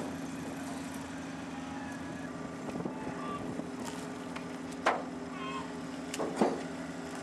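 A fishing boat's engine running with a steady low hum while the seine net is hauled aboard. Two sharp knocks stand out, about five seconds in and again a second and a half later.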